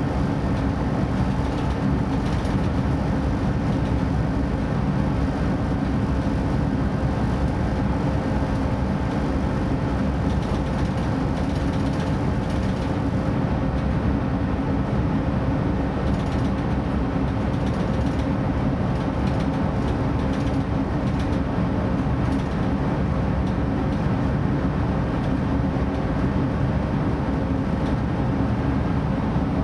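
Interior sound of a PESA Link (DB Class 633) diesel multiple unit running steadily: an even drone of engine and wheels on rail, with a faint steady whine above it.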